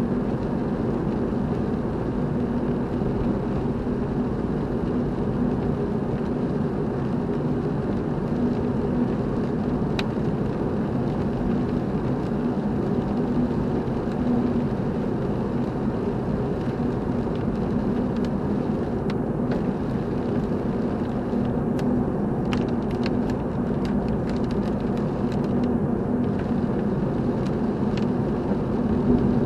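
Steady driving noise of a car heard from inside the cabin: engine and tyre hum on a wet road, even in level throughout, with a few faint ticks in the second half.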